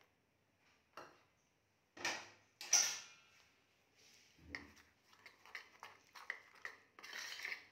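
Steel spoon and steel bowl: a few separate clinks and knocks, one ringing briefly, then a quicker run of light taps and scrapes as the spoon stirs flour and water into a batter.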